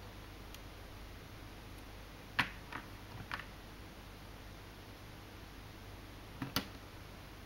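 Sharp plastic clicks of LEGO Technic parts being handled and fitted together: three clicks about two and a half seconds in, then a quick double click near the end.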